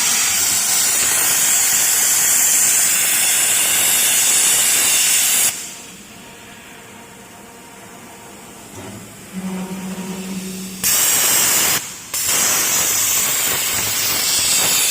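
CNC plasma cutting torch hissing steadily as it cuts steel beam, cutting out about five seconds in. After a quieter stretch with a short low hum from the machine, the hiss comes back for about a second, stops briefly, and then resumes.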